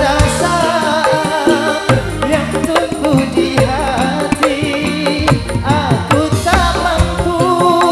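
Dangdut koplo band playing live, with kendang hand drums driving the beat under electric guitars, keyboard and bass.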